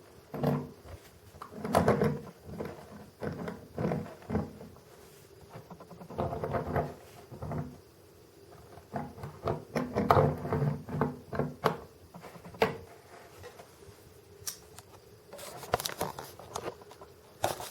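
Small diecast model counterweight pieces being handled on a work surface: irregular clicks, taps and brief scraping as the parts are picked up, set down and knocked together.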